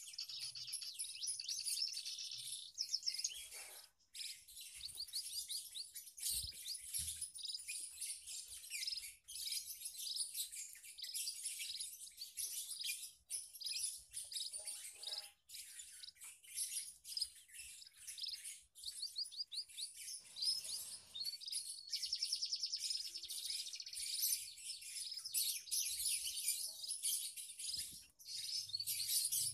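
Small aviary finches chirping and twittering continually, with runs of fast trilled notes now and then.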